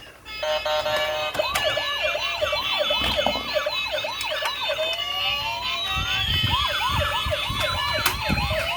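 An electronic siren in a fast yelp, about four rising-and-falling whoops a second. About six seconds in it switches to a slower wail that rises and falls over a second or more.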